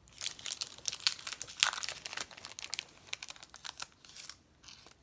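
Crinkling and crackling of sticker packaging being handled and opened: a quick, irregular run of small crackles that dies down near the end.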